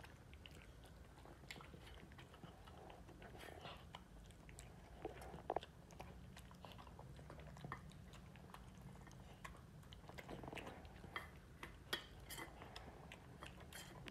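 A small dog eating soft, deboned boiled pork from a stainless steel bowl: faint, irregular chewing and mouth clicks, a few of them louder.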